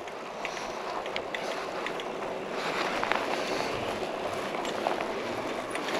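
Wind noise on the microphone and the rolling noise of a bicycle being ridden, a steady rush with a few faint ticks and rattles, a little louder from about halfway through.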